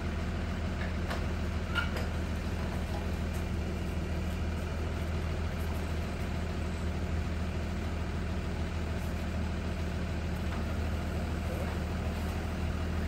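School bus engine idling steadily, a constant low hum.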